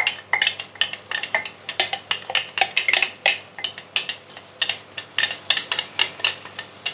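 A utensil scraping and knocking inside a plastic blender jug as blended sambal paste is scraped out into a frying pan, giving a quick, uneven run of sharp clicks and knocks, several a second.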